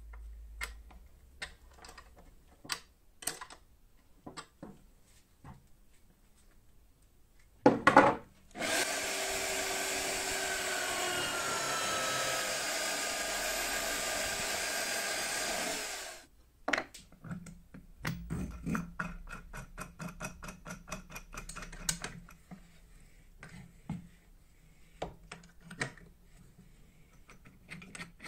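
Homemade drill press boring into a plywood block, a loud steady whir for about seven and a half seconds, with a couple of sharp knocks just before it starts. Before it come light metal clicks of a wrench on a nut, and after it the clicks and taps of small wooden and metal parts being handled.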